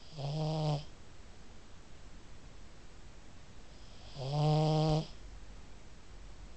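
Pug snoring in her sleep: two loud, pitched snores about four seconds apart, each lasting under a second.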